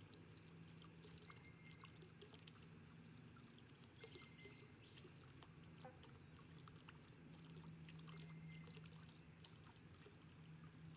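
Faint pond ambience: a soft trickle of water with scattered small drips and clicks over a low steady hum, and a brief high chirping about four seconds in.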